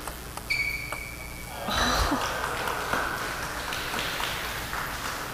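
End of a table tennis rally: a couple of sharp ball clicks and a short, high shoe squeak on the floor, then from about two seconds in, spectators applauding the point for a few seconds, fading out.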